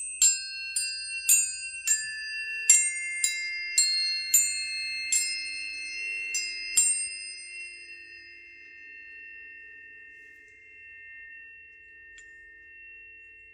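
Bell-like struck metal tones at a few high pitches: about a dozen strikes in the first seven seconds, then the tones ring on and slowly fade.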